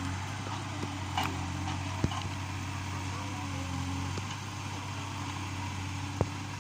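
Yanmar B37 excavator's diesel engine running steadily, with a few sharp knocks about a second, two seconds and six seconds in.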